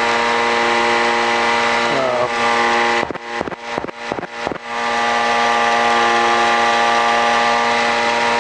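Ultralight aircraft's engine and propeller running steadily in flight, a constant drone with a fixed pitch, heard through the cockpit audio. About three seconds in the sound breaks up into crackles and dropouts for a second and a half, then the steady drone returns.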